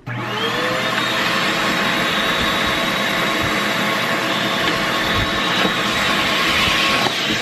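Vacuum cleaner switched on, its motor rising to speed in about half a second and then running steadily, with air rushing through a narrow flat mini-vac attachment nozzle as it sucks lint out of a sewing machine's bobbin area.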